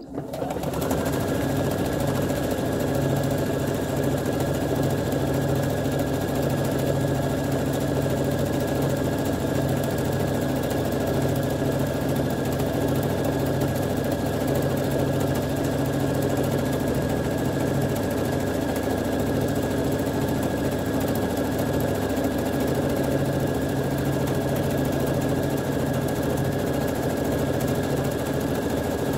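Electric sewing machine starting up and running at a steady speed, stitching a row of its set stitch pattern through water-soluble film and fabric offcuts.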